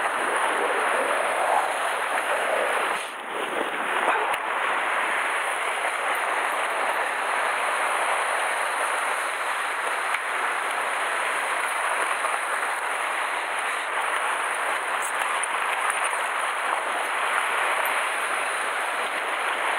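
Sea waves washing and breaking over rocks, a steady rushing hiss that dips briefly about three seconds in.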